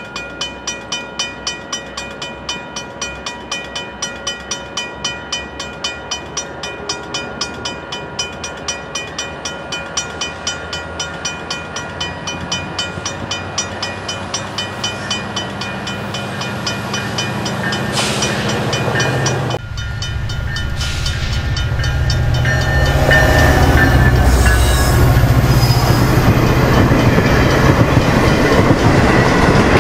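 EMD SD70M-2 diesel locomotive approaching with its bell ringing in even strokes, a little over two a second, which fade out. About two-thirds of the way through the sound jumps suddenly to a loud rumble and clickety-clack as the flatcars loaded with continuous welded rail roll past close by.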